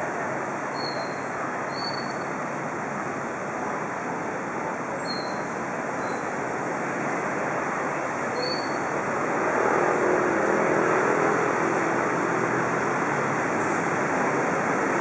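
Steady street traffic noise, growing louder about ten seconds in as an engine comes closer.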